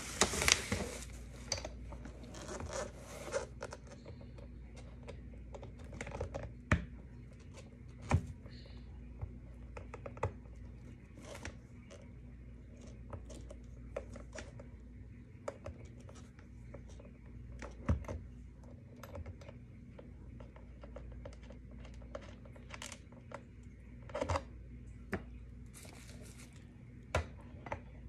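Plastic bubble wrap crinkling and rustling for the first few seconds, then scattered clicks, scrapes and knocks as a skate tool turns the axle nuts and the wheels are pulled off a quad roller skate.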